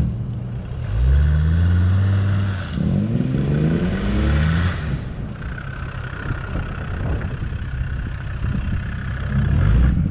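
Land Rover Discovery 2 TD5's five-cylinder turbodiesel engine revving through mud. Its pitch rises about a second in, swings up and down again around three to four seconds in, then runs steadier as the vehicle passes close by.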